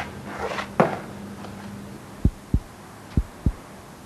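Heartbeat sound effect: low paired thumps, lub-dub, about one pair a second, starting about two seconds in. Before it, a thud about a second in over a faint steady hum.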